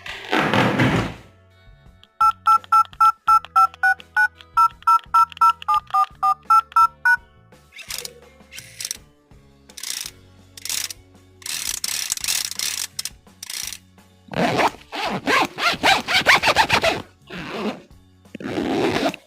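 A string of separate sound effects. A short burst of noise comes first. From about two seconds in, a run of short electronic beeps, about four a second, steps between two pitches like a little tune for about five seconds. After that come scattered clicks and several loud bursts of noise toward the end.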